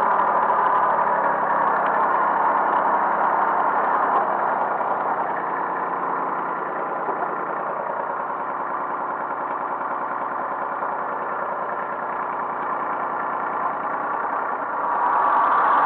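Kubota B1820 compact tractor's three-cylinder diesel engine running steadily. It eases slightly quieter partway through and picks up again near the end.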